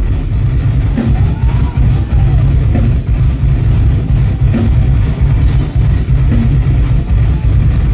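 A heavy metal band playing live and loud: distorted electric guitars and bass over a drum kit with a driving kick drum. It sounds dense and bass-heavy, as heard from within the crowd.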